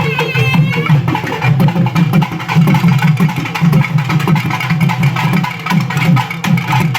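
Drums and melodic instruments playing together: dense, rapid drum strokes under a wavering, ornamented melody that stands out about the first second.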